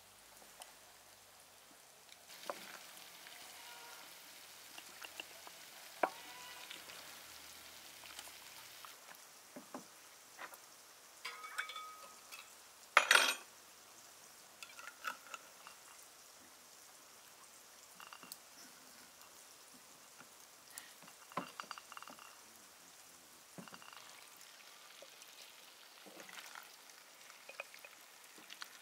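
Kitchen work sounds: scattered light clicks and knocks of utensils and containers, with a soft hiss from about two to nine seconds in and one louder clatter about thirteen seconds in.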